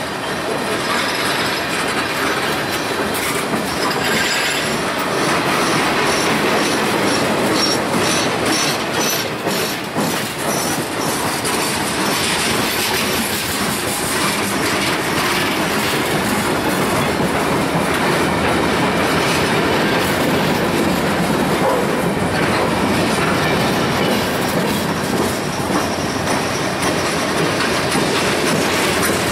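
Freight train cars (tank cars, open hoppers and coil steel cars) rolling past close by: steady clatter of steel wheels over the rail joints, with a thin high wheel squeal at times in the first part.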